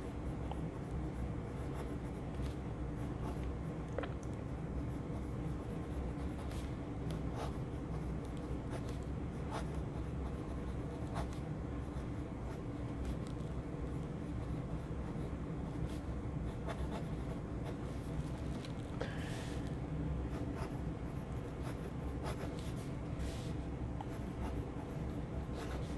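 Fine fountain-pen nib of a Penbbs 355 writing cursive on lined notebook paper: faint, continuous light scratching of pen strokes, with a couple of brief louder swishes in the last third. The nib gives a slightly toothy feedback on the paper.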